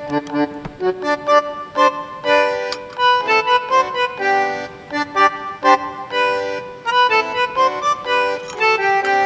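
Background music led by an accordion playing a lively melody, with a violin joining in.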